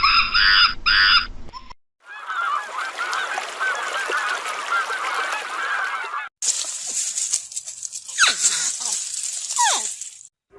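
Animal calls in a string of short clips. First, a repeated pitched call, several a second, ending about two seconds in. Then a dense chorus of many overlapping calls, and near the end a high hiss with a few falling whistles.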